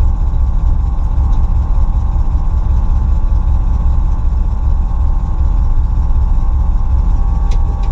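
Carbureted Ford 351 (5.8 L) small-block V8 with a stage 1 cam, swapped into a BMW E34, idling steadily, heard from inside the cabin as a loud, low rumble.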